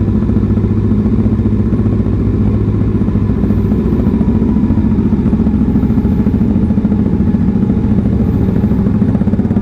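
Kawasaki ZX-6R inline-four engine running at low, steady revs as the bike is ridden slowly over a muddy track.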